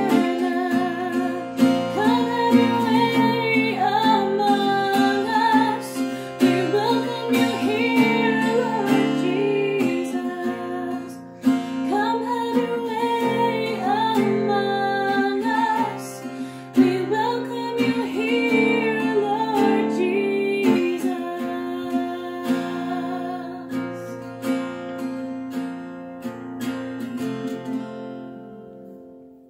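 A woman singing a worship song while strumming an acoustic guitar. The singing stops about two-thirds of the way through, and the guitar plays on alone, dying away at the end.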